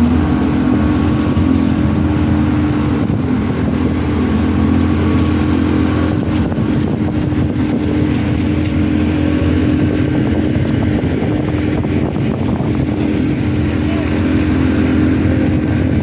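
Speedboat's Yamaha outboard motor running at a steady cruising speed, a constant engine note over the rush of the churning wake.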